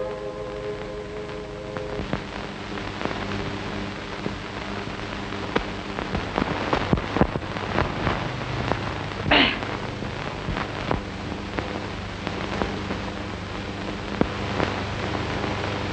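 Crackle and hiss of a 1930s optical film soundtrack, full of irregular clicks and pops over a low steady hum, with faint music tones dying away in the first two seconds. A brief sharper sound stands out about nine seconds in.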